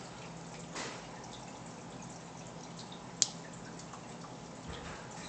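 Aquarium water bubbling and trickling from the tank's air bubbler and filter, with a faint steady hum under it. One sharp click about three seconds in.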